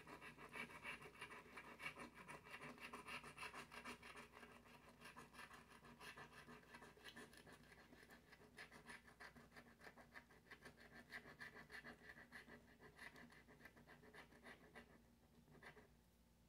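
Scratching the coating off a scratch-off lottery ticket: quick, repeated scraping strokes that stop shortly before the end.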